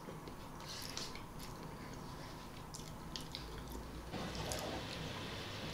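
Quiet eating sounds: soft wet mouth sounds and small clicks as spoonfuls of ryazhenka, a thick fermented baked milk, are eaten from a cup. A slightly louder soft noise comes in about four seconds in.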